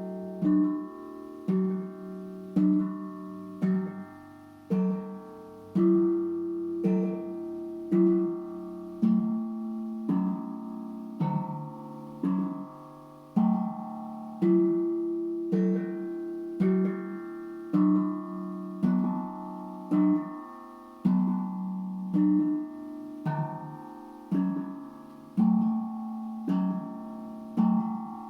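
Tank drum (steel tongue drum) played slowly: single notes struck about once a second, each ringing on and overlapping the next, in a gently repeating melodic pattern.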